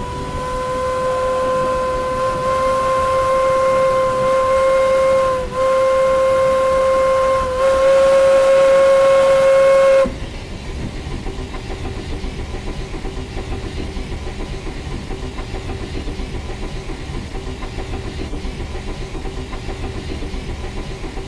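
Steam locomotive whistle blowing one long blast of about ten seconds, dipping briefly twice and cutting off suddenly. Underneath, the locomotive's steady rhythmic running is heard from the driver's cab and carries on after the whistle stops.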